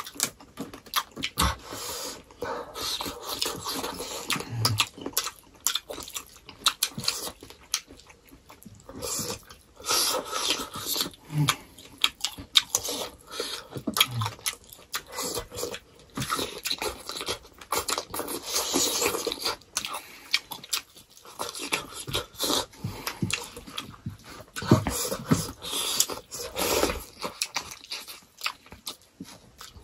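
Close-up eating sounds of two people eating rice and pork curry with their hands: chewing and lip-smacking, a rapid run of short wet clicks and smacks throughout.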